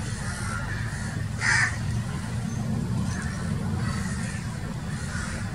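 A single short, harsh animal call about a second and a half in, over a steady low rumble, with a few faint calls later.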